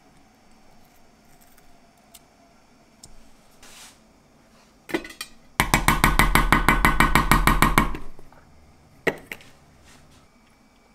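A wooden spoon working a lump of thick black bean paste off against a stainless steel mixing bowl. The bowl rattles and rings in a quick, even run of about eight strokes a second for a couple of seconds, with a single knock just before and another about a second after.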